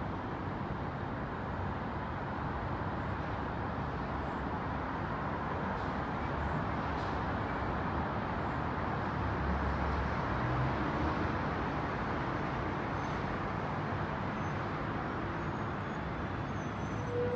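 Distant city road traffic heard from high above: a steady, even hum of road noise that swells slightly midway through.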